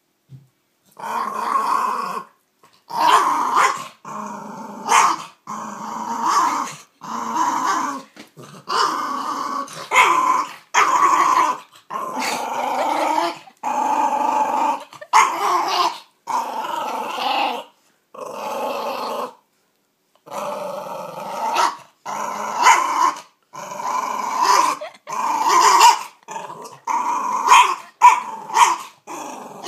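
Yorkshire terrier growling in repeated bouts of about a second each, guarding its bone against a hand. The bouts turn into shorter, sharper snarls near the end.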